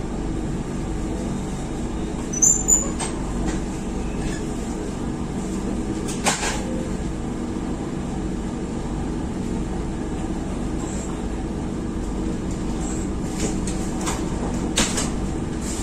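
Steady rumble and hum inside a passenger coach of the Ciremai train as it is moved slowly during shunting. A few sharp clicks and knocks cut through, the loudest about two and a half seconds in and a few more near the end.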